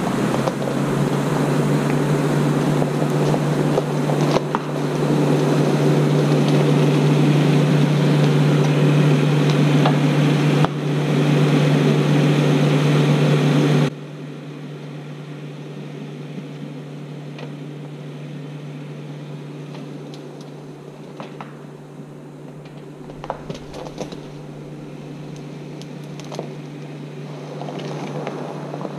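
Jeep driving on a dirt trail: a steady engine drone under tyre and wind noise. Loud for the first half, then it drops suddenly to a quieter steady drone, with a few light knocks near the end.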